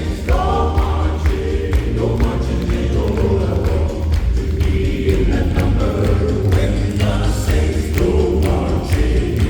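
Southern gospel quartets singing together in harmony over a live band with a heavy bass line.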